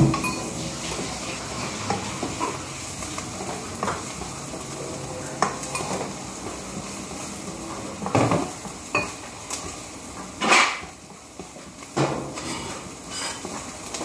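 Chopped onion sizzling in hot oil in a nonstick wok while a spatula stirs and scrapes it, with a handful of sharper knocks and clatters of utensil against pan spread through the stretch.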